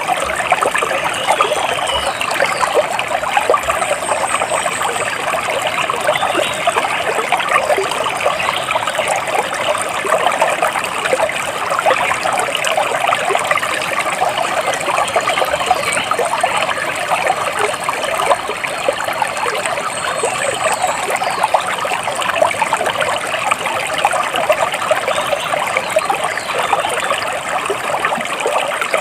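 Water steadily trickling and splashing, like a small stream running over stones, with a dense, unbroken babble. Faint high bird chirps come through a few times.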